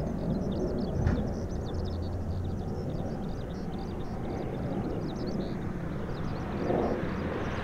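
Steady, distant jet rumble of a Delta Boeing 767's twin turbofans as the airliner climbs overhead, with rapid high-pitched chirping running over it. There is a brief knock about a second in.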